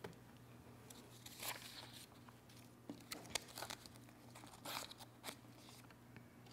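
Faint rustling and soft ticks of papers being handled at a wooden lectern, a few scattered sounds over a low steady hum.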